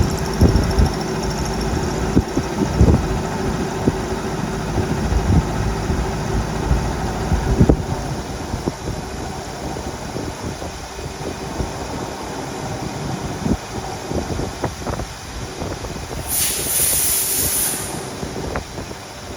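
Milling machine running steadily, with irregular knocks through the first half and a short high hiss of about two seconds near the end.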